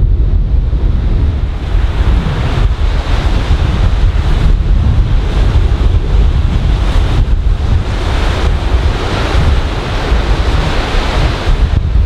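Surf breaking and washing up a sand beach, with strong wind buffeting the microphone in a heavy low rumble. The hiss of the waves swells twice, a few seconds in and again near the end.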